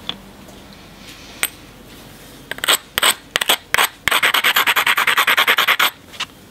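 Edge of a cherty mudstone biface being ground with a hand-held abrader: a few separate scrapes, then from about four seconds in a quick run of rubbing strokes, about ten a second, for about two seconds. This is edge grinding, done to strengthen the platforms before a flake is struck.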